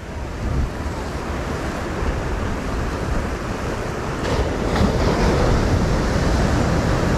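Sea surf breaking and washing over a rocky shoreline, a steady rushing wash that grows louder about four seconds in as a bigger wave breaks.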